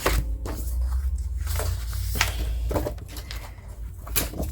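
Clicks, taps and light rustling of paper and plastic binding being handled while a booklet is bound, with a steady low hum underneath.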